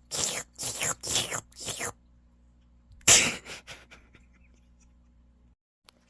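A person making exaggerated wet licking noises with the mouth, imitating a cat grooming: about five quick licks in a row, then a louder lick about three seconds in followed by a few smaller ones.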